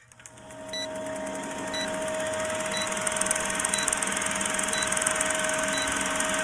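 Old-film countdown leader sound effect: a film projector whirring and rattling, with a short high beep once a second as the numbers count down. It fades in over the first couple of seconds.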